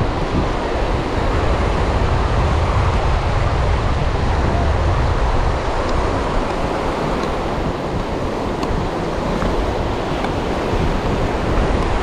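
Ocean surf breaking on a beach, a steady rush of waves, with wind rumbling on the microphone, heaviest from about two to six seconds in.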